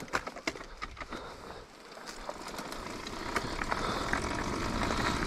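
A 2008 Kawasaki KX250F dirt bike being ridden along a paved road: a steady rush of riding noise that grows louder from about two seconds in as the bike picks up speed, with a few sharp clicks near the start.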